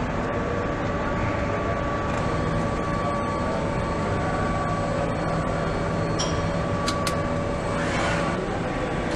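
Steady hum and hiss of factory-floor machinery, with a few faint steady whines in it. A couple of light clicks come about two-thirds of the way through.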